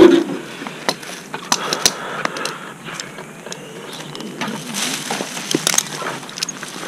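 Tree-climbing gear being handled: carabiners and a rope device clicking and rattling at irregular intervals against the rope and lanyard, with branches and leaves rustling.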